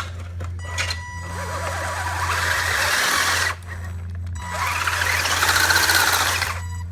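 RC crawler's 35-turn Atomik brushed electric motor and gearing whining in two throttle blips, each rising and then falling in pitch. The motor is overheated and giving out, and runs poorly under load.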